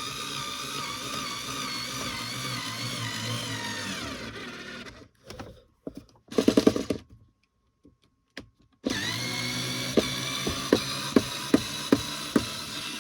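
Electric screwdriver running for about five seconds, pitch wavering under load, then a short rattle, then running again with a string of sharp clicks about twice a second. It is driving a screw through the drawer front to bore the hole for a handle.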